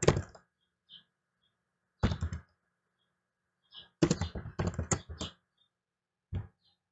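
Computer keyboard typing in short bursts of keystrokes: a few keys about two seconds in, a longer quick run from about four to five seconds in, and one last short keystroke near the end.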